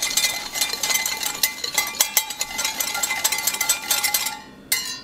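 A whisk stirring dry ground spices in a glass measuring cup, clinking rapidly against the glass, which rings faintly. The stirring stops a little after four seconds in, with one last short burst.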